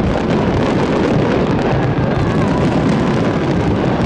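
Fireworks display: a dense, unbroken run of bangs and crackles.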